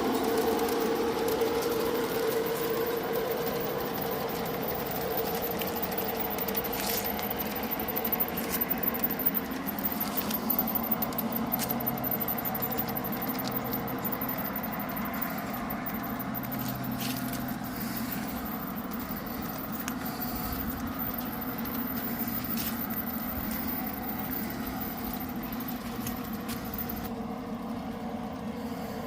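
G scale model freight train running along garden railroad track: a steady mechanical hum with the light rattle of the cars and occasional sharp clicks.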